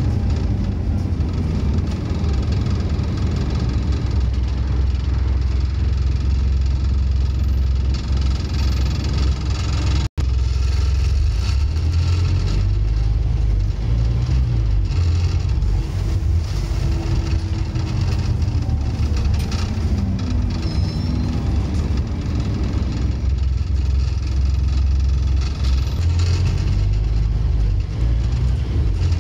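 Scania N230UD OmniCity single-deck bus's engine, a 9-litre five-cylinder diesel, heard from inside the passenger saloon while driving, a steady low rumble with the engine note rising and falling. The sound drops out for a split second about ten seconds in.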